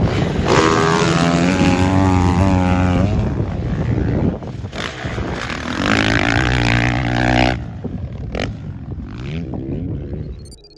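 Dirt bike engine revving hard in two loud runs with the pitch climbing, then easing off and running quieter near the end.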